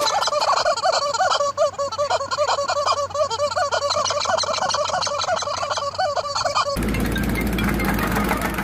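Yellow rubber chicken toy squeezed again and again in a horse's jaws, giving a rapid run of squeaky honks. About seven seconds in it gives way to a jumping-jack tamping rammer's engine running.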